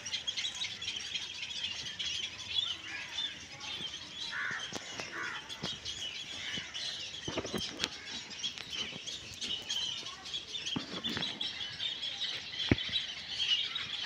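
Many small birds chirping steadily, a dense chorus of short high calls, with a few brief knocks and rustles about halfway through.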